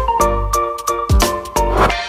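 Background music: a bright melody of short, sharply struck notes over a steady low beat.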